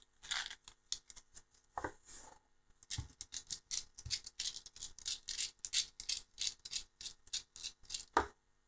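Small hex screwdriver driving M2 screws through the propellers into the motors of a small FPV quadcopter: a quick run of light clicks and ticks, about four a second, after a few light handling sounds of the loose screws.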